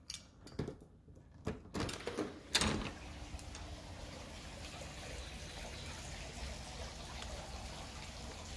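A door being unlatched and pulled open, with light clicks of handling and then one sharp clack about two and a half seconds in. After that, a steady outdoor hiss with a low rumble.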